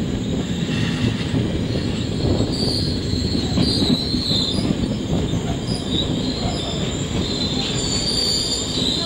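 Regional passenger train running on the rails, a steady dense rumble of wheels on track heard from the carriage window. From about two and a half seconds in, thin high-pitched metallic squeals come and go over it as the train comes into its stop at the station.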